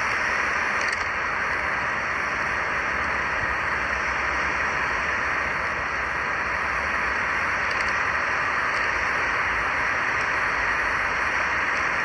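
Loud, steady rushing noise with a low rumble underneath, even in level throughout.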